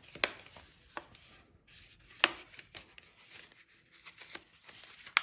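Small tool parts and their packaging being handled by hand: scattered light clicks and rubbing, with one sharper click a little over two seconds in.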